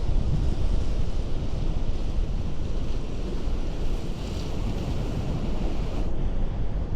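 Ocean surf breaking and washing on a rocky shore, with low wind rumble on the microphone. A hiss of foaming water, strongest about four seconds in, cuts off about six seconds in.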